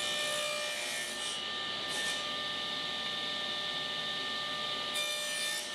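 Table saw running with a steady whine while its blade cuts a shallow rabbet into the edge of a small quarter-inch Baltic birch plywood panel. The cutting noise comes over the first second or so, briefly about two seconds in, and again near the end.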